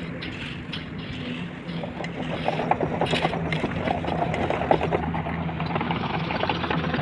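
Construction vehicle engine running steadily, joined from about two seconds in by a dense, quick clattering that grows slightly louder.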